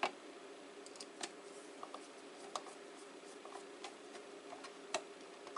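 Scattered small metallic clicks and taps as a short screw is started by hand into the back of a Crosman 2240 air pistol with a small screwdriver, over a faint steady hum.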